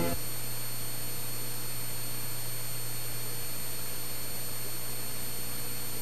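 Steady hiss and low hum, with a few faint steady tones, after string music cuts out at the start: the background noise of an old analogue videotape recording.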